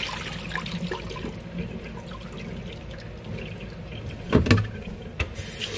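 Water running and splashing into a pot of cooked noodles in a stainless steel sink, with small clicks and one loud knock about four and a half seconds in.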